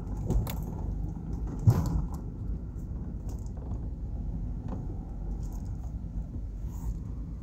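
Steady low rumble of a car driving slowly over a rough, patched lot, heard from inside the cabin, with light rattles and clicks. A sharp knock about a second and a half in is the loudest sound.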